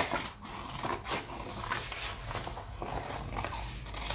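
Scissors snipping through a sheet of painted paper: a run of short, crisp cuts one after another, the sharpest right at the start.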